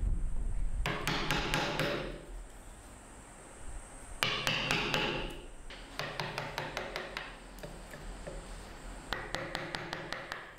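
Wood-carving chisel cutting into a wooden statue in four bursts of quick sharp taps, each about a second long, with short pauses between them: detailed finishing cuts on the carving.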